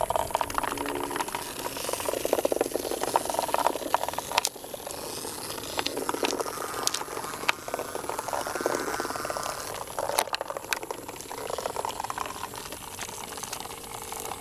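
Several Hexbug vibrating robot bugs buzzing and rattling across a plastic bin floor and against wooden blocks: a fast, dense rattling buzz, louder for the first few seconds, with scattered sharp clicks.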